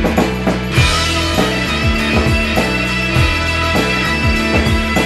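Rock-style theme music with a drum kit beating steadily under held guitar and bass tones; a bright high wash comes in about a second in.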